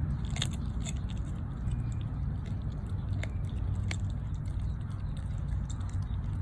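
Dog chewing a raw chicken leg quarter, with a few sharp crunches, over a steady low rumble.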